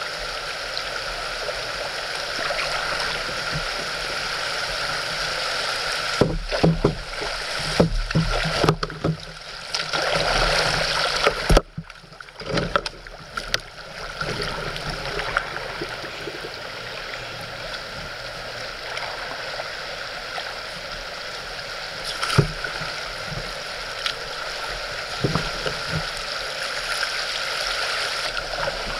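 Steady rush of river water flowing past a kayak through shallow riffles. Irregular knocks and bumps break in between about six and fourteen seconds.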